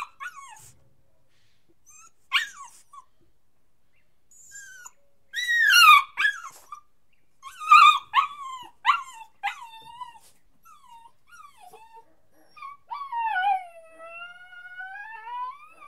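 Puppy crying: a string of high whines and short yelps, most falling in pitch, with a quick run of short whimpers in the middle and a long whine near the end that dips and then rises.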